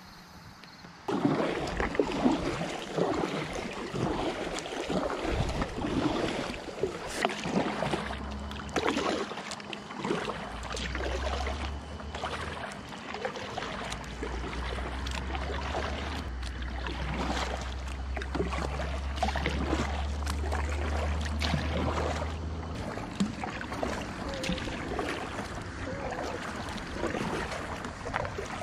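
Kayak paddle strokes dipping, splashing and dripping in the river, with water lapping at the hull, starting suddenly about a second in.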